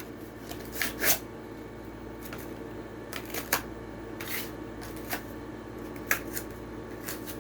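Scattered crackles and clicks of cardboard and plastic blister packaging being torn open to free a diecast toy car, over a steady low hum.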